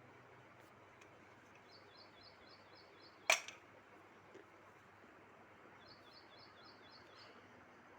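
A single loud, sharp click or snap over a faint steady hiss, with two short runs of quick, repeated high chirps, one before the click and one after.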